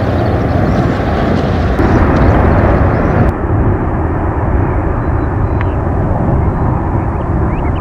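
Boeing 777 airliner landing: a loud, steady rumble of its jet engines mixed with wind buffeting the microphone. About three seconds in, the sound changes abruptly as the airliner comes in close to touch down.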